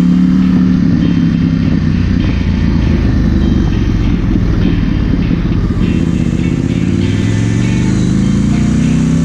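Husqvarna 901 Norden's 889cc parallel-twin engine running under way. Its note falls in the first second and climbs again over the last few seconds, over a steady rush of noise.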